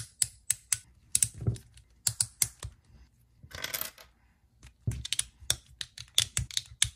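Rapid, irregular plastic clicks from a MoYu RS3 M 2020 speedcube as its centers are adjusted to a tighter tension setting and the center caps are pressed into place. A short scraping rustle comes a little past halfway.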